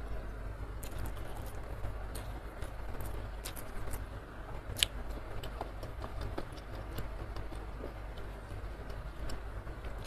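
Close-miked eating sounds: wet chewing and mouth clicks as a woman eats rice and side dishes with her fingers. There is a sharp click about five seconds in, over a steady low hum.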